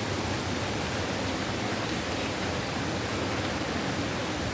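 Steady, even rushing of strong storm wind with light rain as a hurricane builds.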